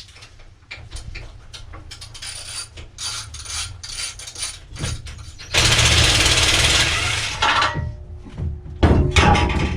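Scattered light metallic clicks and taps of hand tools and parts being handled on a motorcycle, with a loud, even hiss lasting about two seconds a little past halfway, and another loud noisy stretch near the end.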